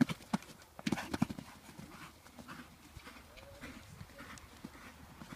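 Hoofbeats of a ridden horse on a sand arena, a quick run of dull strikes that are loudest in the first second and a half, then fainter.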